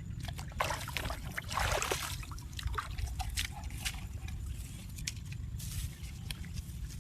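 Water splashing and sloshing, loudest in a burst about one to two seconds in, then scattered small splashes and drips over a steady low rumble.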